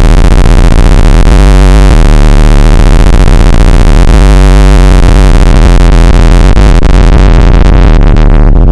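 Very loud, harsh electronic noise: a dense hiss across the whole range over a steady, buzzing bass drone. Near the end the hiss starts to thin out from the top down.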